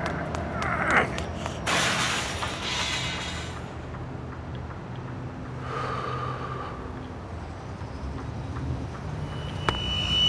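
Layered sound-design effects over a low steady drone: a quick rising whine about a second in, then a loud burst of hissing noise lasting about two seconds, and later a brief steady tone.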